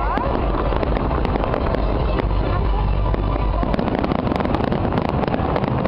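Fireworks display: dense crackling with many sharp pops over a continuous low rumble, the rumble dropping away a little under four seconds in.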